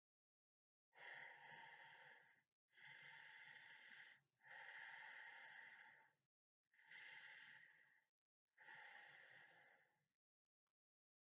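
A sleeping person's slow, heavy breathing: five drawn-out breaths of about a second and a half each, with short gaps between them.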